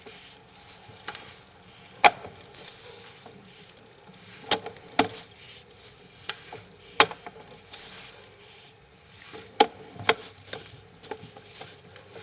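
Irregular sharp knocks and clicks, about nine in twelve seconds, over a faint steady hiss, as a sewer inspection camera's push cable is worked back out of the line.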